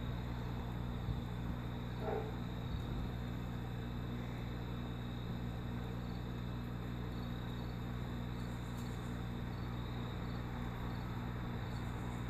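Steady low electrical hum of the aquarium's filter and pump motor with a constant hiss, and a faint high-pitched chirping repeating at an even pace.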